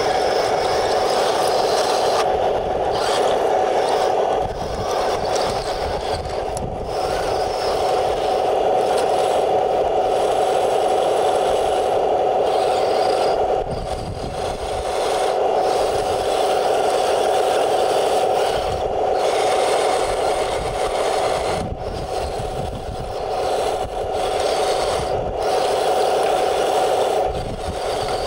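1:16 scale Taigen RC tank driving over rough ground: a steady mechanical drone from the tank, dipping briefly a few times. Wind rumbles on the microphone underneath.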